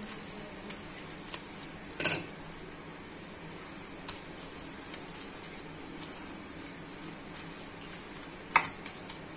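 Glass dishes knocking as they are handled and set down: a sharp clink about two seconds in and another near the end, with a few lighter taps over a faint steady hiss.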